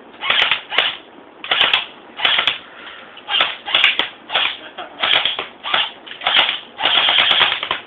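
Fully automatic airsoft M4 BB rifle firing about a dozen short bursts of rapid clatter, the last and longest lasting about a second near the end.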